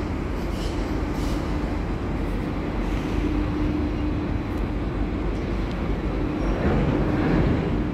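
Tugboat engine running with a steady low rumble and a constant hum, heard from on deck, swelling slightly about seven seconds in.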